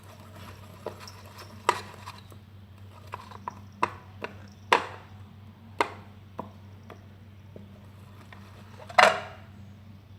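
Scattered clicks and knocks of containers and utensils being handled while making slime, with a sharper knock about five seconds in and a longer clatter about nine seconds in, over a faint steady low hum.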